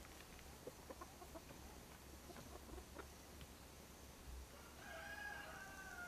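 Free-ranging chickens clucking faintly in short soft calls, then one drawn-out call begins about a second before the end.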